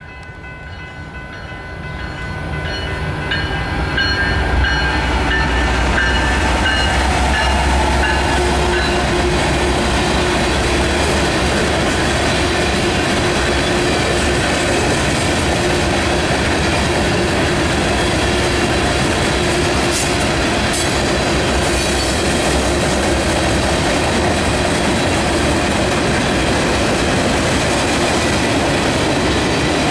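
BNSF mixed freight train approaching and passing close by, growing louder over the first four seconds. It then settles into a steady rumble and clatter of freight cars rolling by on the rails.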